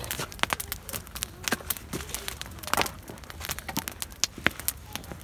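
Bonfire crackling, with irregular sharp pops and snaps several times a second.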